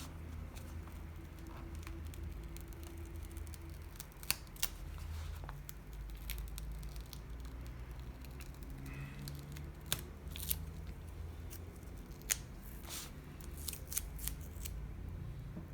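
Scissors cutting paper in several short, separate snips, with light paper handling, over a low steady hum.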